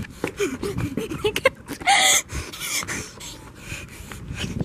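Scattered indistinct voices and breathing of people running, with knocks and rustling from a handheld camera. One short, loud, high sound about two seconds in.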